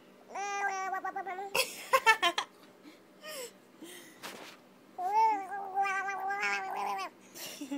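A teething four-month-old baby making two long, high, drawn-out squealing vocal sounds, each lasting a second or more, with a short burst of sharp clicks between them.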